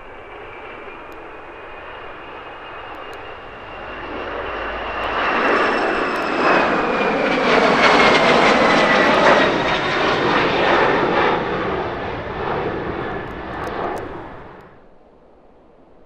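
Gulfstream G600 business jet's twin Pratt & Whitney PW815GA turbofans at takeoff power as it departs and passes close by. The sound grows loud to a peak about eight to ten seconds in, with a high whine that falls in pitch as the jet goes past. It cuts off sharply about fifteen seconds in.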